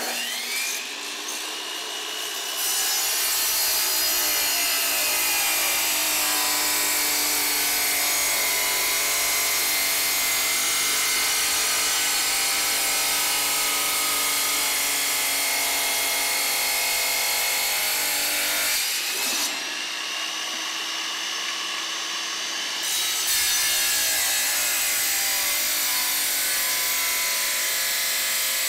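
DeWalt sliding wet tile saw switching on and spinning up, then its diamond blade ripping through a thick porcelain tile with a steady high grinding hiss. About two-thirds of the way through, the blade comes out of the tile and spins freely for a few seconds, then it bites into the tile again for a second cut.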